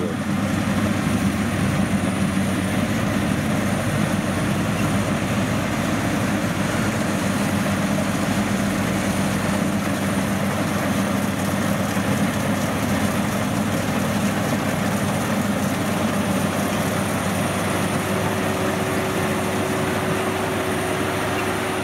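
Crawler rice combine harvester running steadily while it cuts rice, a constant engine drone with a low hum. A second, higher steady tone joins in over the last few seconds as the machine comes closer.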